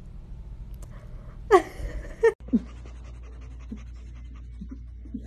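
A kitten mewing twice, loud falling calls about a second and a half in. After that, a domestic cat gives a string of short, low calls that drop in pitch, like a dog panting.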